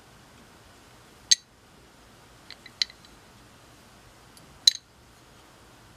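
Sharp metallic clicks of an old Ford wrench being handled: one about a second in, a few lighter ticks near three seconds, and another sharp click near five seconds.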